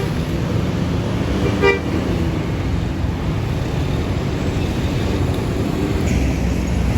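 Large bus engine running with a steady low rumble, and one short horn toot about a second and a half in.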